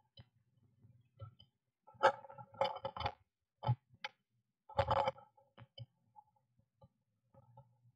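Blue tit's claws scrabbling and tapping on the inside of a wooden nest box, in two bursts of scratchy clicks, as the bird climbs out through the entrance hole and then comes back in onto the nest.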